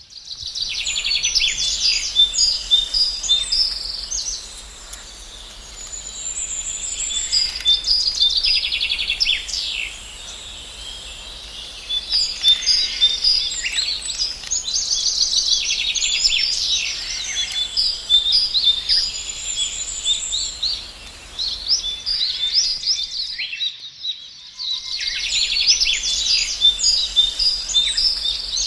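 Many songbirds chirping and singing in a busy chorus of quick, high-pitched chirps and trills. The chorus cuts out suddenly for a second or two about 23 seconds in, then starts again.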